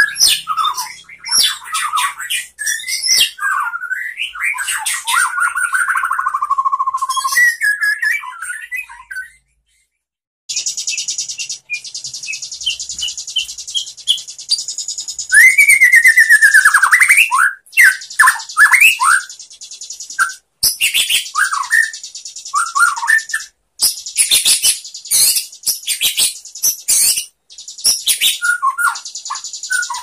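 White-rumped shama singing loudly: varied whistled phrases with steep falling and rising notes, then a long stretch of rapid, high buzzy chatter. The song breaks off abruptly a few times.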